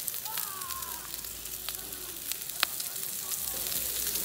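Thick bone-in steak searing on a hot ridged grill plate, its fat sizzling steadily, with a sharp pop about two and a half seconds in.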